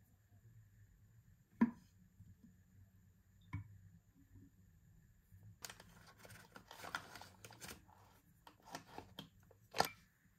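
Kitchen handling sounds: a wooden spoon knocks sharply against glass twice while scooping flour into a glass dish, then a starch packet crinkles and rustles for a couple of seconds as it is shaken out, followed by a few light taps and one more sharp knock near the end.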